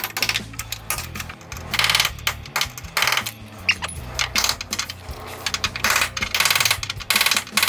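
Hand hammer striking sheet steel in irregular runs of sharp metallic blows, knocking the spot-welded remnants of the old floor pan off a VW Beetle's tunnel and cross member.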